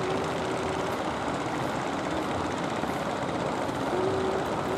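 Steady drone of a wooden fishing boat's motor under the even rush of surf and wind. A few faint short tones are mixed in.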